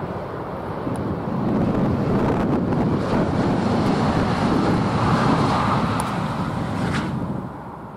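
Rushing noise of a Southeastern Class 395 Javelin electric train passing at speed on the viaduct, mixed with wind buffeting the microphone. It swells over the first couple of seconds and falls away near the end, with a few sharp clicks.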